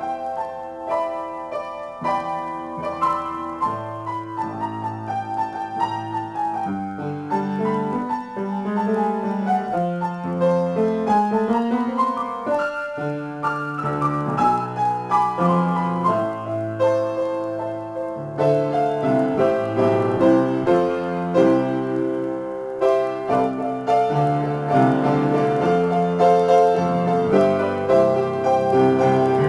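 Upright piano played solo, an improvisation in A minor: sustained chords in the low register under a melody higher up, with a run of notes climbing in pitch near the middle.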